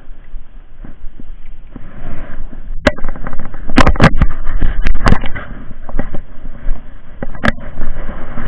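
Handling noise on a body-worn camera's microphone: clothing and tackle rustle and rub against it as the wearer moves. There are sharp knocks, the loudest bunched near the middle and one more near the end.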